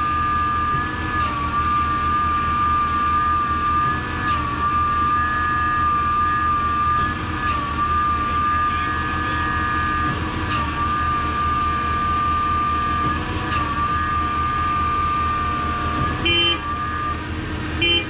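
Truck-mounted concrete boom pump running steadily under load: a diesel engine's fast low pulsing under a steady hydraulic whine. The whine dips with a faint knock about every three seconds as the pump strokes. A brief higher tone sounds near the end.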